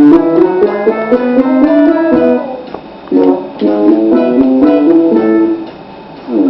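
A plucked string instrument playing a quick melody of picked notes and chords, pausing briefly about two and a half seconds in.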